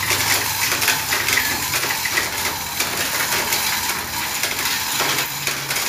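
Steel hand chain of a 5-ton chain hoist rattling and clicking continuously as it is pulled hand over hand, lifting the engine out of the car.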